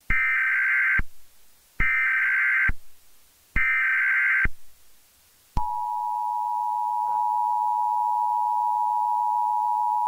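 Emergency Alert System tones: three roughly one-second bursts of the raspy SAME digital header, then, about five and a half seconds in, the steady EAS two-tone attention signal (853 and 960 Hz played together).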